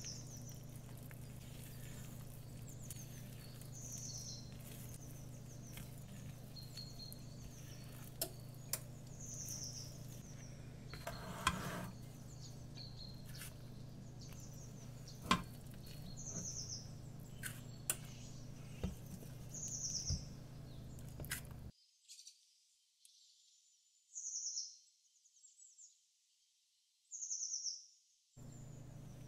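Recorded winter morning birdsong: short high chirps and calls every second or two, over a low steady hum. Occasional clicks and knocks from utensils on the bowl and muffin pan come through, and near the end the hum and knocks drop out, leaving only the birdsong.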